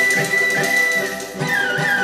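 Instrumental background music: a high held melody line over a steady beat, the melody wavering and stepping down about three-quarters of the way through.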